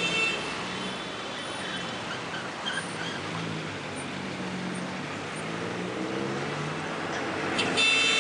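Road traffic at a city intersection: car engines running and passing at low speed. Near the end there is a brief, loud high-pitched sound.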